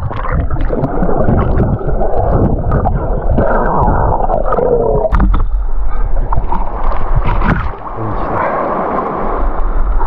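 Muffled gurgling and bubbling of water around an action camera held underwater in the sea. About five seconds in the camera comes up out of the water, and water sloshing and splashing close to the microphone follows.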